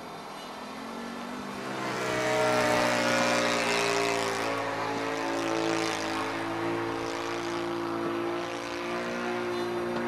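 OS FS-120 Surpass III four-stroke glow engine running on new bearings, driving the propeller of a radio-controlled Yak 54 model plane in flight. It grows louder about two seconds in as the plane passes, then holds steady.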